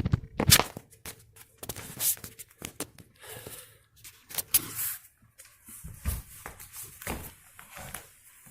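A run of irregular knocks, thuds and short scrapes, several of them sharp and loud, with brief quiet gaps between.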